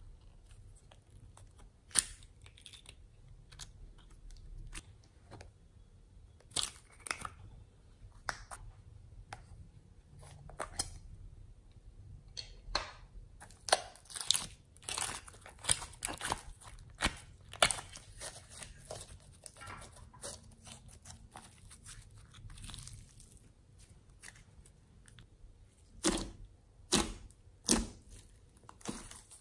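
Thick glossy slime squeezed and pressed by hand, giving irregular sharp clicks, pops and sticky crackles. They come thickest midway, with a few louder pops near the end.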